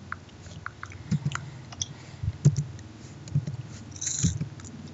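Computer keyboard keys tapped slowly, irregular single clicks about once or twice a second, over a steady low hum. A short hiss sounds about four seconds in.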